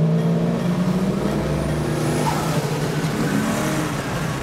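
Turbocharged Nissan RB30 straight-six in a Holden VL Commodore, heard from inside the cabin, pulling steadily on track. It eases back slightly about a third of the way through, then runs on at an even drone.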